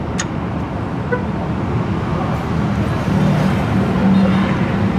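Steady low drone of engines and road traffic, with one sharp metallic click near the start as CVT pulley parts are handled.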